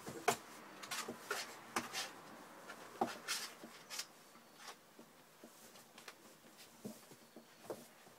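Irregular scratchy taps and rustles, a few at a time, from young puppies crawling and scrabbling about a fleece-lined cardboard box.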